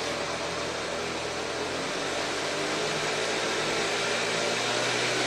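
Large-scale model diesel locomotive running on its track, its two motors and gearing giving a steady whirr, the pitch edging up near the end as the voltage is turned up toward maximum.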